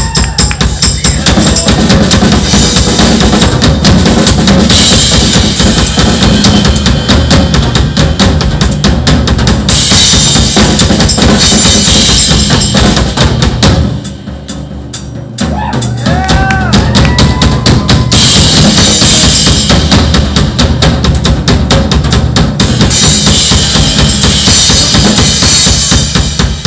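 Drum kit solo: fast, dense bass drum, snare and tom strokes under long stretches of crashing cymbals, with a short break about halfway through before the playing starts again.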